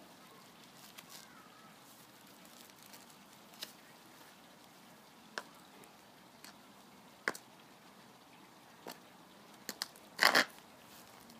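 Block heel of a black lugged-sole high-heel ankle boot knocking and scraping on concrete: a few sharp, spaced-out clicks, then a louder, brief double scrape near the end.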